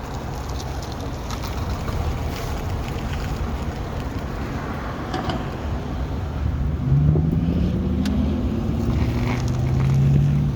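Car moving slowly while turning, with a low steady rumble. About seven seconds in, a groaning tone from the front wheels starts, rises in pitch and then holds steady near the end, with a few clicks along the way. This is the turning noise from the front end that is under investigation.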